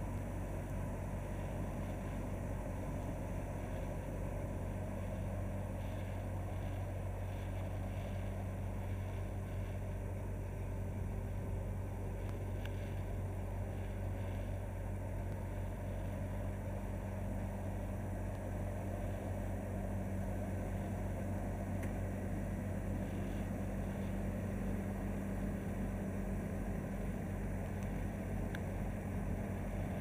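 Bobcat A300 skid steer's diesel engine running steadily as the machine drives and turns.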